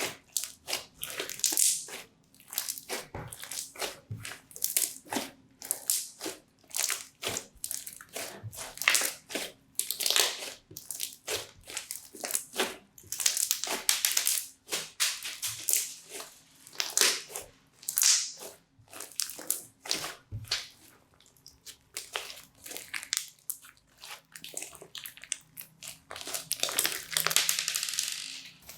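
Crunchy slime full of colourful beads being squeezed and worked, crackling in irregular crunchy bursts.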